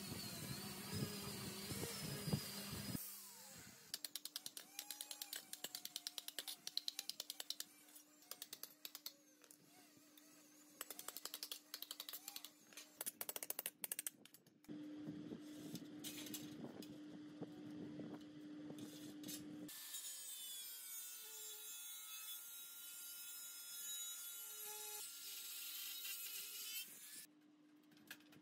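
Hand metalworking on sheet steel in several short cuts. The main part is a long run of quick, light hammer taps on a steel sheet laid over a piece of railroad rail used as an anvil. Other stretches hold steady workshop noise.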